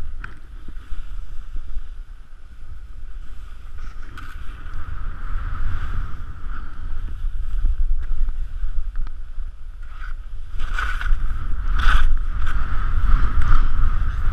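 Wind buffeting the action camera's microphone during a ski descent, a loud, uneven low rumble, with skis hissing and scraping over wind-packed snow. There are two louder scrapes in the last few seconds.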